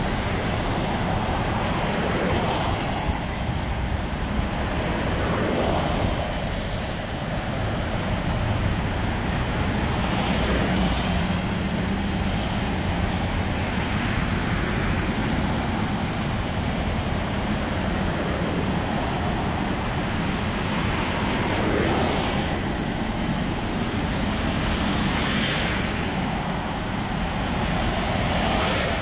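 Traffic on a rain-soaked road: cars and vans passing every few seconds, their tyres hissing on the wet tarmac, each pass swelling and fading. Under it runs a steady low rumble of wind on the microphone.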